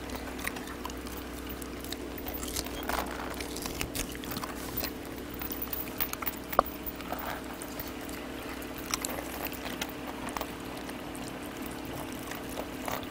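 Young Jindo dogs eating boiled pork by hand, with wet chewing and licking sounds and scattered small clicks, one sharper click about six and a half seconds in. A steady faint hum runs underneath.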